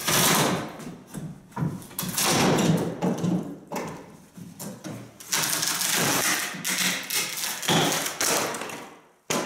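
Demolition of wood wall framing: a steel pry bar wrenching the header and boards loose, with several loud crashes and scrapes of lumber and debris coming down, and a short bang near the end.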